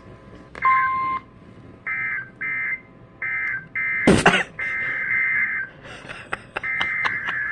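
Emergency Alert System digital data bursts: a string of short, buzzy two-tone chirps, most under half a second, with a longer one about five seconds in, following the end of a tornado-warning message. A sharp crackling glitch cuts across them about four seconds in.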